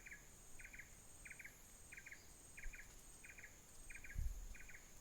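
Faint, steady insect chirping: short chirps of three or four quick pulses, about three every two seconds, over a constant high-pitched insect whine. A brief low thump about four seconds in.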